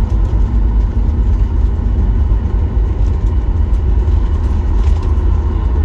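Jet airliner rolling out on the runway after touchdown, heard from inside the cabin: a steady, loud low rumble of engines and wheels as the plane slows with its spoilers deployed.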